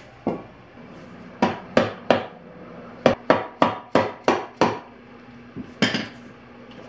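Hammer tapping a punch driven against a Nissan CD009 transmission's aluminium case: about a dozen sharp metallic taps with a short ring. One tap comes first, then three, then a quick run of six, and two more near the end.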